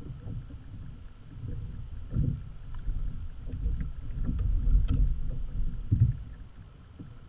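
Water sloshing and knocking against a kayak hull, with low rumbling wind buffeting on the microphone that builds to its loudest between about four and six seconds in.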